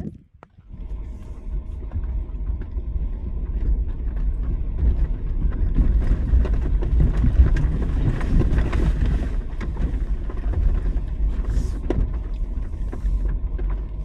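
Off-road vehicle driving along a dirt trail: a steady low engine-and-tyre rumble with scattered small knocks and rattles.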